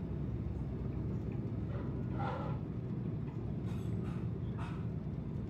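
Light aircraft's engine and propeller heard from inside the cockpit as a low, steady rumble during the landing roll on the runway.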